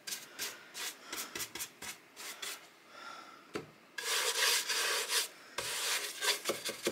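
Bristle paintbrush stroking milk paint onto a wooden tray: a run of short scratchy strokes, then a longer, denser stretch of brushing about four seconds in, then short strokes again.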